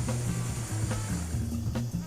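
Background music: a steady drum beat over a moving bass line.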